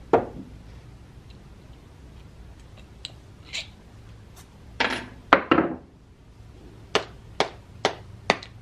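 Rubber mallet tapping on a cryocooler's metal housing to work it loose, with a steady run of sharp knocks about two a second beginning near the end. Before that, a knock as the housing is set down on the wooden bench and some clatter of handling.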